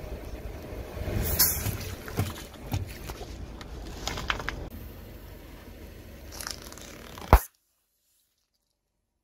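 Car tyre rolling over and crushing small objects, among them cardboard juice cartons and small plastic bottles: a run of crunches, crackles and squishes, with one sharp loud pop about seven seconds in, after which the sound cuts off completely.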